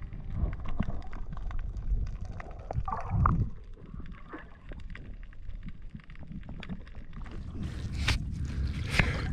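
Water sloshing and splashing at the surface with wind on the microphone, the splashing growing louder near the end.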